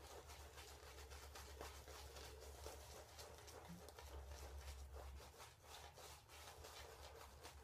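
Near silence, with faint soft swishes of a shaving brush working lather over the face a few times a second, over a low steady hum.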